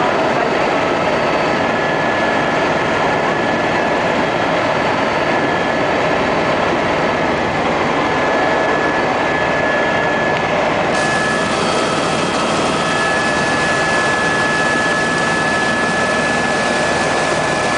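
Helicopter engine and rotor noise heard inside the cabin in flight: a loud, steady din with a thin, steady high whine above it. About eleven seconds in, the hiss suddenly grows brighter.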